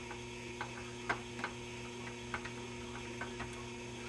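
Steady mains hum from a tube tester, with irregular small clicks as its switches are worked during a short test on a 6AV6 tube.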